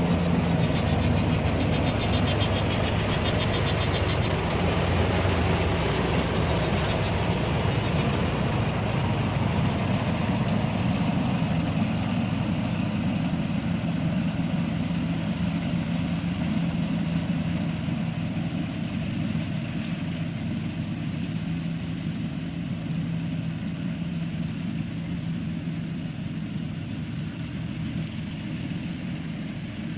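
ISEKI rice combine harvester running while it cuts through the paddy: a steady drone of engine and machinery that slowly fades as the machine moves away.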